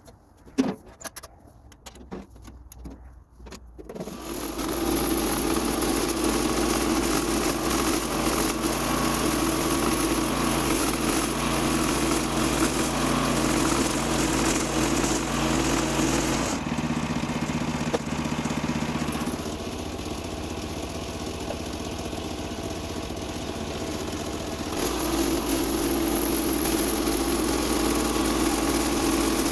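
A few light knocks, then a portable band sawmill's gas engine comes in about four seconds in and runs steadily. It drops quieter for a few seconds past the middle and comes back up near the end.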